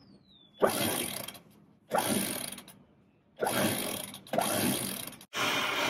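Electric sailboat cockpit winch running in five short bursts of about a second each, switched on and off by its push button as it hauls in the line that hoists the dinghy onto the stern davits.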